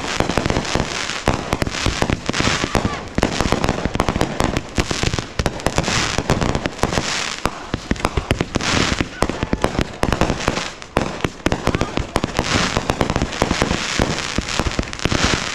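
Aerial fireworks launching close by and bursting overhead in a dense, unbroken barrage of loud bangs and pops.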